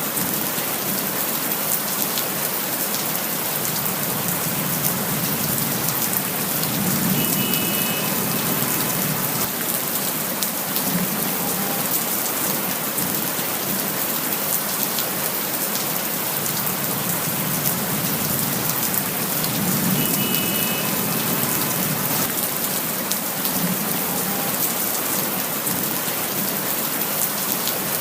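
Steady rain falling, drops pattering on surfaces in an even hiss.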